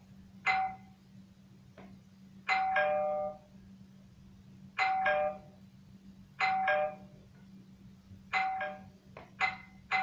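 Electronic two-note ding-dong chime, a higher note falling to a lower one, sounding about seven times at uneven intervals, each ringing out briefly.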